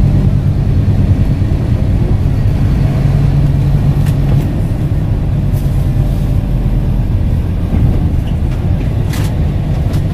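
Scania K230UB bus's five-cylinder diesel engine and ZF automatic drivetrain heard from inside the saloon while the bus drives along, a steady low rumble. A few faint clicks from the bodywork.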